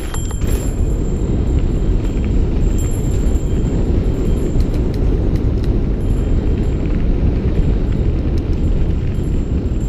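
Wind rumbling over an action camera's microphone on a mountain bike riding fast down a dirt path, mixed with tyre noise on the dirt and a few sharp rattles from the bike.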